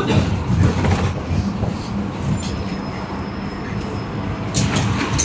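Cabin noise inside a moving city public-transport vehicle: a steady low rumble with running noise, a little louder near the end.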